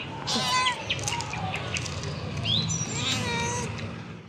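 Hungry stray cat meowing twice, about half a second in and again about three seconds in, as it is fed.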